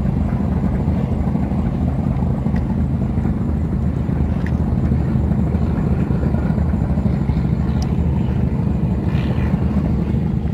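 A steady, loud low engine rumble with a few faint ticks.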